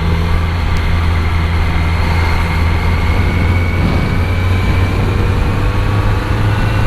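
Kawasaki Z900 inline-four engine running under way on the road, steady, with its pitch rising slowly as it gains revs.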